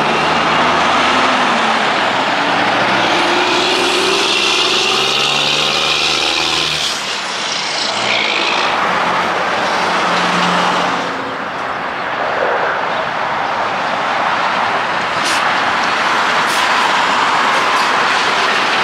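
A semi-truck's diesel engine pulling away and accelerating, its pitch rising for the first several seconds, then the steady noise of cars and trucks passing on the highway, with a few short clicks near the end.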